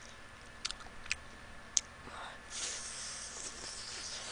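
Soft mouth sounds of eating a spicy chicken wing: a few short wet lip clicks, then a drawn-out sucking hiss at the mouth from about halfway through.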